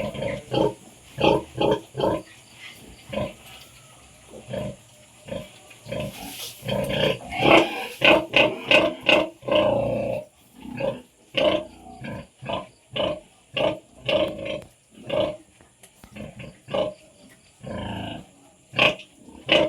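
Pigs (a sow and her young litter) making short grunting calls, one or two a second, crowding together about a third of the way in.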